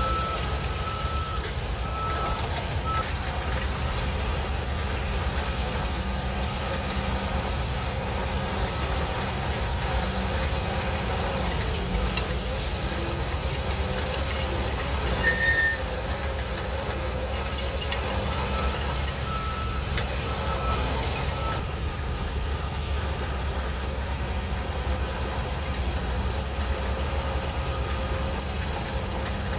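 Shantui DH17C3 Pro bulldozer's diesel engine running steadily with a low rumble as the machine works. A faint high beep comes and goes over it, with a short louder high tone about fifteen seconds in.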